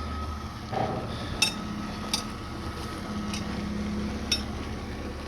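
Metal parts or tools clinking as a vehicle is taken apart: about five sharp, separate clinks with a short ring, spaced irregularly, over a steady low hum.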